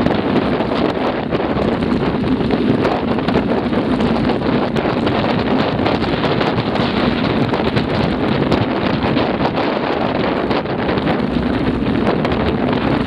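Steady wind rushing over the microphone of a camera riding on a mountain bike. Under it, tyres crunch over a gravel dirt track and the bike rattles with frequent small clicks.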